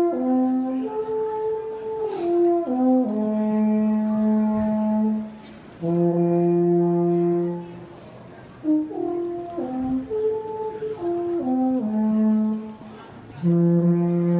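Alphorn playing a slow melody of held notes. The phrase is played twice, with a short pause between, and each time it ends on long, low sustained notes.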